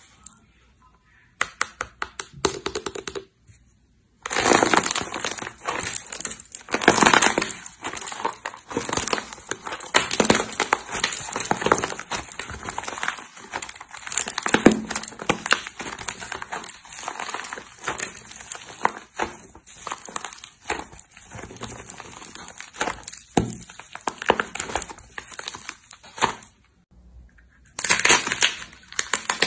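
Slime being squeezed, pressed and stretched by hand, giving a fast, dense run of small crackles and clicks. A few scattered clicks come first, the main run starts about four seconds in, and it breaks off briefly near the end before starting again.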